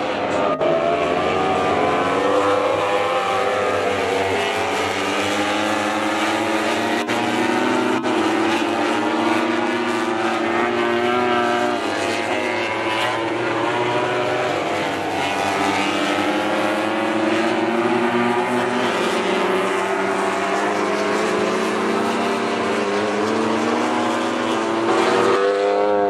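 MotoGP racing motorcycles at high revs, a Yamaha YZR-M1 inline-four among them, the engine notes rising and falling over and over as the bikes accelerate and slow for corners. Several bikes are heard at once.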